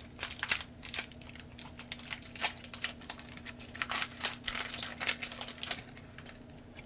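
Foil Pokémon booster pack wrapper being torn open and crinkled by hand: a run of irregular crackles and rustles that thin out about six seconds in.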